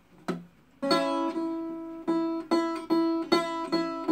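Acoustic guitar strummed by a child: two strums, a short pause, then a steady run of about two to three strums a second, the same chord ringing each time.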